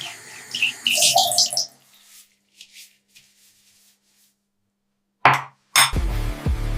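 Brief rubbing and handling noises, then a near-silent pause, then two sharp hits and a deep bass note as electronic music starts.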